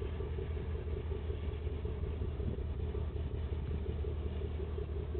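Tugboat engines running with a steady low rumble as the tug pushes its barge upriver.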